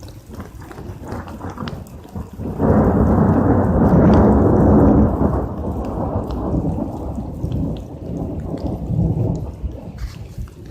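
Thunder in a heavy hailstorm: a sudden loud, deep rumble about two and a half seconds in that dies away slowly over several seconds, over the scattered ticks of falling hail.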